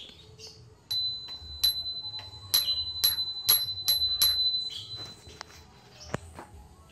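Brass bicycle-style bell on a motorcycle handlebar, rung repeatedly by hand: about ten quick strikes over four seconds, its high ring carrying on between strikes. A single sharp click follows about six seconds in.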